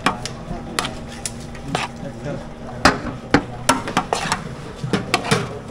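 Irregular sharp clinks and knocks of a serving spoon and stacked plates against a large aluminium cooking pot and its metal lid as rice is dished out.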